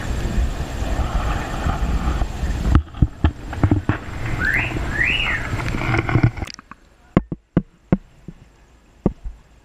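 Steady aquarium background noise with a low rumble, broken by a run of sharp clicks and knocks and two short rising-and-falling squeaky glides near the middle. The background cuts off suddenly about six and a half seconds in, leaving only a few isolated clicks.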